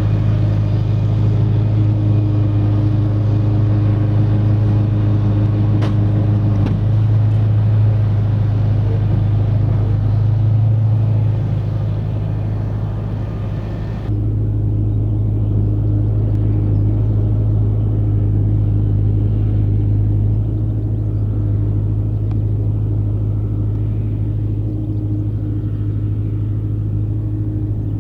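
Massey Ferguson 6470 tractor engine running steadily under load while pulling a Fendt big baler, a deep, even hum. About halfway through the higher hiss drops away suddenly, and the same steady engine note carries on.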